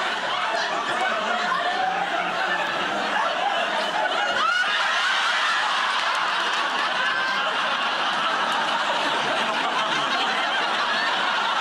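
Studio audience laughing, one long unbroken wave of laughter.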